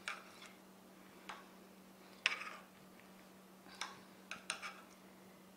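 Metal spoon scraping diced fruit on a cutting board and tapping against a clear plastic ice ball mold: a handful of light, scattered clicks, the loudest about two seconds in, over a faint steady hum.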